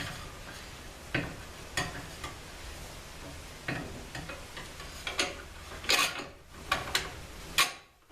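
Small metal hardware (bolts and nuts) being handled, clicking and clinking at irregular moments, a few sharper knocks near the end.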